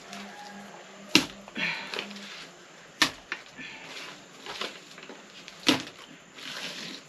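Three sharp knocks or clacks of hard objects, roughly two seconds apart, with soft scraping and rustling between them.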